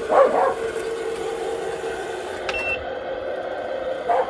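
Tamiya 3348 RC dump truck's electric drive motor and gearbox whining at a steady pitch as it drives. It surges louder briefly just after the start and again just before the end. A short high beep sounds about two and a half seconds in.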